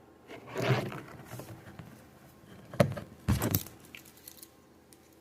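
A folding army pocket knife being handled: a rustle, then a sharp click near three seconds in followed by a short metallic rattle, and a few faint ticks.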